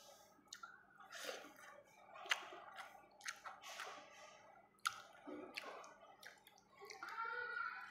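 Close wet mouth sounds of someone eating rice and eggplant by hand: chewing, lip smacks and sharp wet clicks, several times.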